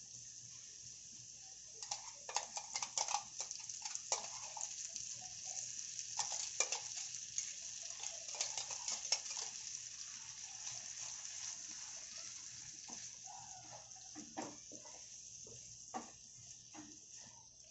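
Onion and tomato sizzling in oil in a non-stick frying pan, with a steady hiss, while a wooden spatula scrapes and clicks against the pan as a wet green chilli, garlic and coriander paste is added and stirred in. The spatula strokes come thick in the first half and again near the end.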